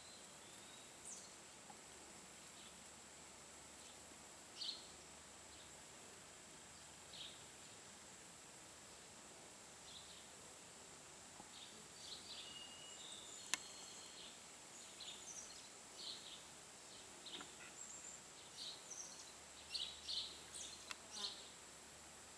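Faint outdoor bird chirps: short, high notes scattered at first and coming thicker in the last few seconds, over a steady high-pitched insect drone. One sharp click a little past the middle.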